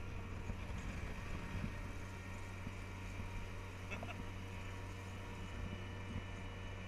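Daimler Ferret armoured car's Rolls-Royce straight-six petrol engine running steadily while the vehicle drives along, heard as a constant low drone with road and wind noise.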